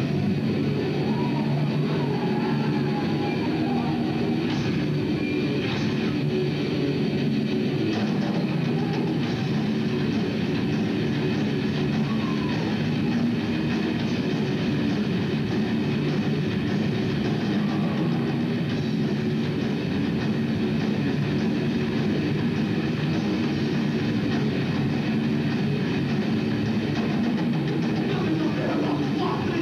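Heavy metal band playing live: two distorted electric guitars, bass guitar and drum kit, loud and steady throughout.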